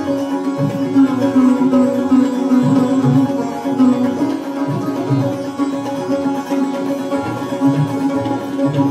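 Sitar playing a melody over its ringing drone strings, accompanied by tabla, with deep bass-drum strokes coming in every second or so.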